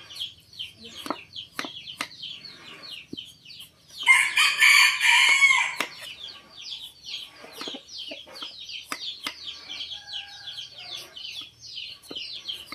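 A rooster crows once, loudly, about four seconds in, over constant rapid high chirping from birds. Sharp clicks of a knife cutting the rind off a breadfruit against a wooden chopping block.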